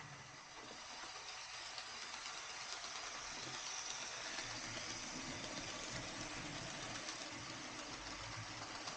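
HO scale model of an EMD F7A diesel locomotive running on the layout: a steady diesel engine running sound with a low pulsing throb, over a constant hiss of rolling wheels on track.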